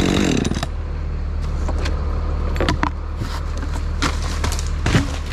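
A chainsaw winds down and stops in the first half second. A bucket truck's engine keeps running with a steady low hum, with a few scattered clicks and knocks.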